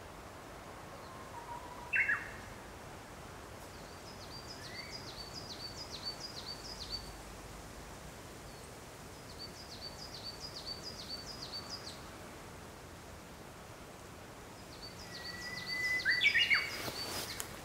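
A songbird sings three times: each phrase is a run of about eight quick, high, downslurred notes, about four a second, lasting around two seconds. Two short whistled calls are the loudest sounds, one about two seconds in and one near the end. Some brief rustling comes near the end.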